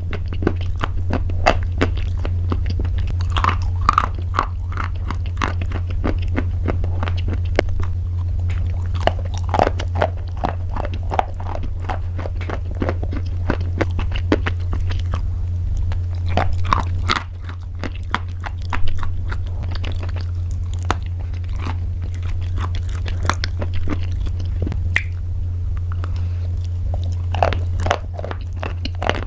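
Someone biting and chewing crunchy pasta: a dense run of sharp cracks and crunches, over a steady low hum.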